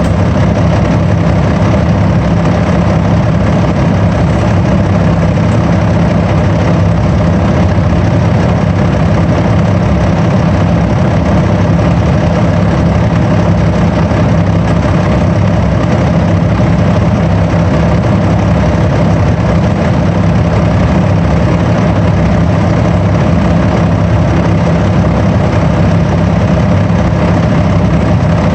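Bus engine running steadily: an even, unchanging drone with no rise or fall in pitch.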